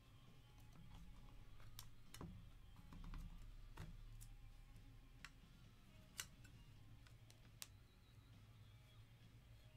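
Faint, scattered clicks and taps of a clear plastic magnetic one-touch card holder and a framed trading card being handled and fitted together, about half a dozen sharp clicks over a low steady hum.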